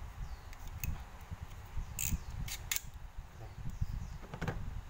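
Handling of an OLFA snap-off utility knife: a few sharp clicks, a pair close together near the middle, as its blade slider is pushed out, over a low handling rumble.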